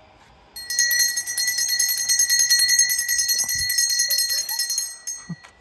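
Small brass puja hand bell (ghanti) rung rapidly and steadily, with quick repeated strikes and a bright ringing tone. It starts about half a second in and stops shortly before the end.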